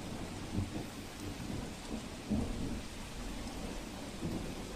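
Steady rain with low rolls of thunder that swell about half a second in, near the middle and near the end.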